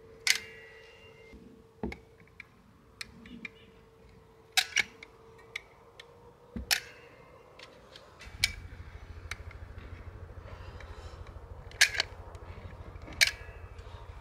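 Scattered sharp clicks and wooden clacks: plywood truss gusset pieces being set down and a caulk gun's trigger squeezed to lay construction adhesive. A low steady hum comes in about eight seconds in.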